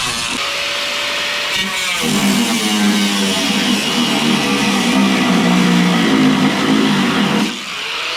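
Guitar music with a steady hiss underneath. A power tool's whine runs for the first couple of seconds and winds down before the music's notes take over.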